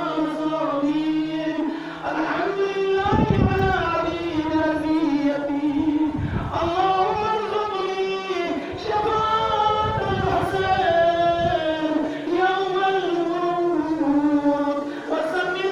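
Men chanting a Muharram mourning lament (noha) in a slow melody of long, wavering held notes. Low thumps come in now and then.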